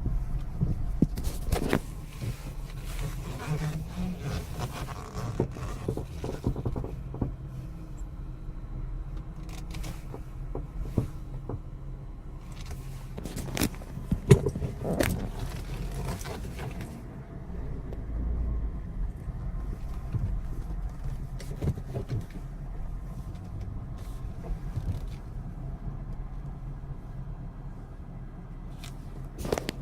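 Ford Cougar with a steady low running rumble and irregular knocks and clicks, the knocking noise that the car has developed.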